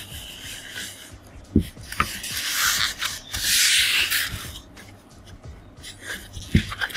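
Foam packing pieces rubbing and scraping against a fabric laptop sleeve as it is pulled free, with a longer spell of rustling in the middle. Two soft thumps, about a second and a half in and near the end, as the pieces are handled.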